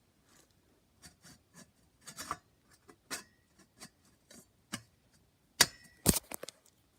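Ceiling fan light-kit parts being handled and fitted: a run of small clicks and taps of metal parts, with two sharp, louder knocks close together near the end.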